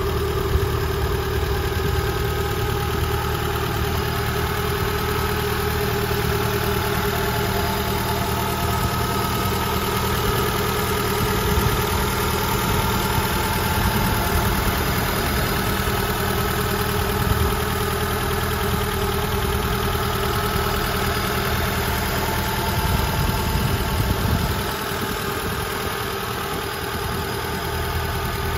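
Nissan fuel-injected engine of a 1991 TD2000 roadster idling steadily, heard close up through the open bonnet. It gets a little quieter near the end.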